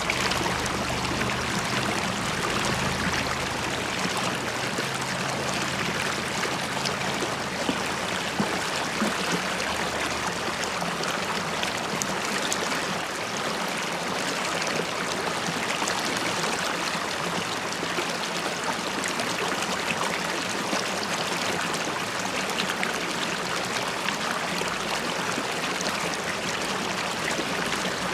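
River water running and bubbling over stones, a steady rush with fine splashing and gurgling throughout.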